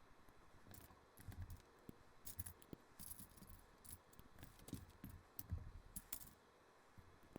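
Faint clicks and light rattles of plastic LEGO bricks being handled and pressed together, irregular, with a few soft thumps.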